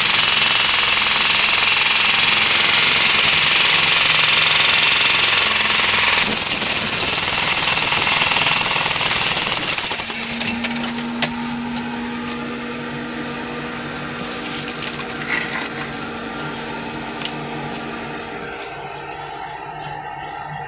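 Electric jackhammer with a chisel bit hammering into rock without pause, getting louder about six seconds in and stopping suddenly about halfway through. A much quieter steady hum with a few faint clicks follows.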